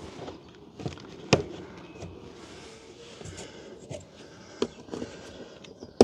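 Scattered sharp clicks and knocks of hands working the plastic wiring connectors and fittings inside a car door with its trim panel off, the loudest a little over a second in and another at the very end.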